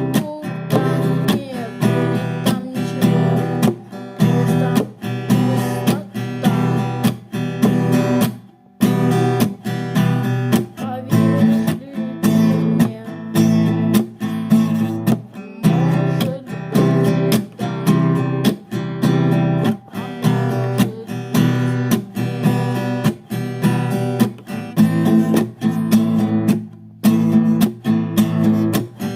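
Music: an acoustic guitar strumming chords in a steady rhythm, with a brief break about nine seconds in and another near the end.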